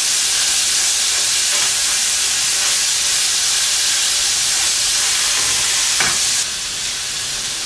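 Striploin steak sizzling steadily on a hot grill pan, its second side searing just after being turned over. There is a brief click about six seconds in, and the sizzle drops a little after it.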